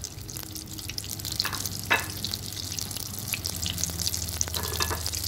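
Melted butter sizzling with a fine, steady crackle in an electric pressure cooker's inner pot as cinnamon sticks, star anise and cloves fry in it, with a few sharper pops, the loudest about two seconds in. A low steady hum runs underneath.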